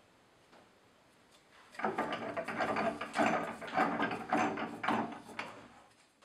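Wooden pressing boards knocking and sliding against one another and the press as they are handled in a bookbinding press. A run of irregular wooden knocks and rubbing starts about two seconds in and dies away near the end.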